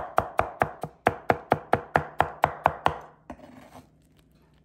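Kitchen knife chopping Chinese yam into a paste on a wooden cutting board, in rapid, even strokes about five a second. The chopping stops about three seconds in.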